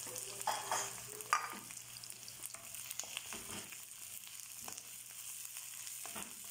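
Sliced onion and ginger sizzling in hot oil in a wok, stirred with a wooden spatula that scrapes and clicks against the pan. A few sharp knocks come in the first second and a half.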